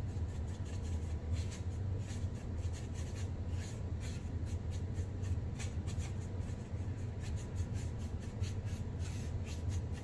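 Thin paintbrush scrubbing paint around a foam tray while mixing colour: a quick series of soft scratchy strokes over a steady low hum.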